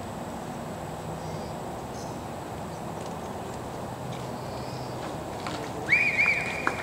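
Steady open-air background hiss at a soccer field, then about six seconds in a referee's pea whistle blows once: a loud, shrill, warbling blast lasting about a second, the signal for the lined-up free kick to be taken.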